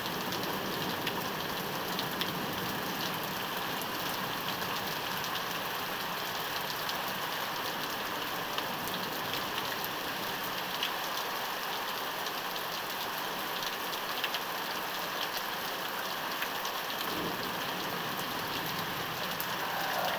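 Steady rain falling, with scattered sharper drops ticking through it.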